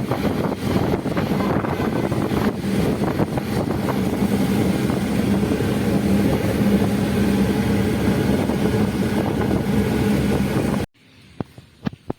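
Loud, steady motor-vehicle engine noise, like close road traffic, with a constant low hum; it cuts off abruptly about eleven seconds in, leaving a quiet background with a few sharp clicks.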